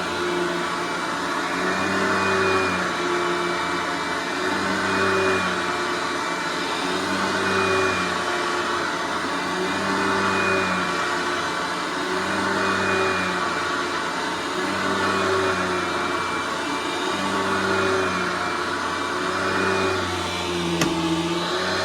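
Hoover Clean & Light upright vacuum cleaner running steadily, its motor sound swelling and easing about every two and a half seconds. A single click comes near the end.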